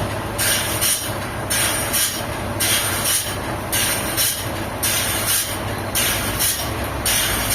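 Sawmill machinery running: a steady low motor hum under a high screech that swells and falls about once a second.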